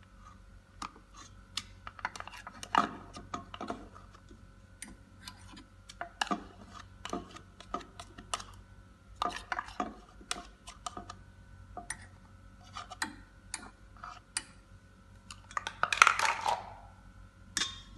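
A spoon scraping and tapping batter out of a plastic measuring cup into a stainless steel mixing bowl: irregular clicks and clinks, with a louder scraping clatter near the end.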